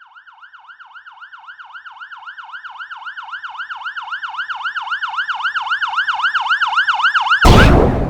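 Emergency-vehicle siren in a fast yelp, sweeping up and down about four to five times a second and growing steadily louder as it approaches. About seven seconds in it is cut off by a sudden loud burst of noise.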